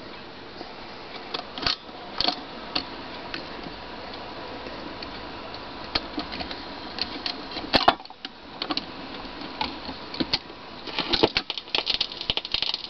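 Dual 1002E automatic record changer working through its change cycle: the mechanism clicks and clatters over a faint steady hiss, with a louder clack about eight seconds in. Near the end the tonearm sets down on the shellac 78 and a dense run of crackles starts in the lead-in groove.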